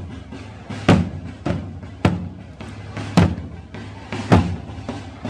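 Drums beating a slow, steady rhythm: a heavy stroke a little less than once a second, with a lighter stroke between each pair.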